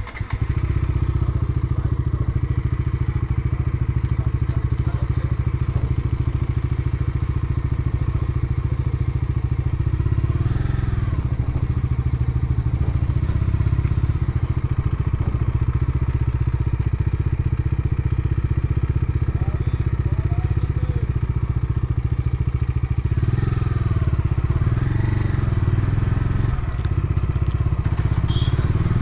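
Bajaj Dominar 400 motorcycle's single-cylinder engine running steadily under way, starting suddenly at the very start.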